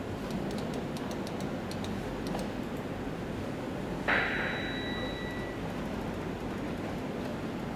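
A single sharp metallic clink about four seconds in, ringing on for about a second and a half, over a steady background hum.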